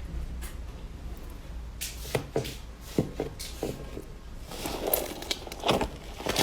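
Slime being squished and worked by hand: a few separate sharp pops start about two seconds in, giving way to dense crackling near the end.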